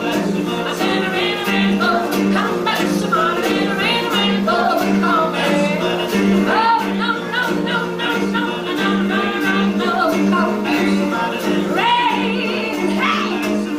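Acoustic blues duo performing live: a woman and a man singing together over guitar, with a steady low pulse and scratchy washboard strokes keeping the rhythm.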